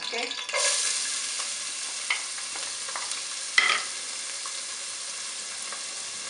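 Chopped red onion frying in hot oil in a pot: a burst of sizzling about half a second in as the onion hits the oil, settling into a steady sizzle. Two short knocks come in between, the second the loudest.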